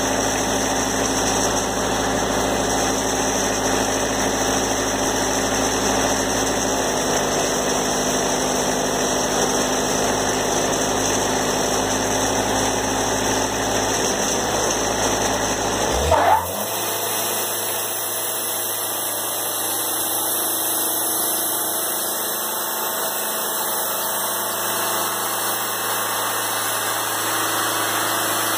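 Wood-Mizer band sawmill's engine running steadily. About halfway through, a brief sharp rising sound, and the deep hum drops away, leaving a lighter steady running sound.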